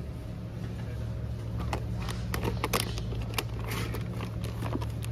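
Plastic food package crackling and clicking as it is handled and lifted off the shelf, starting about a second and a half in, over a steady low hum from the store's refrigerated display cases.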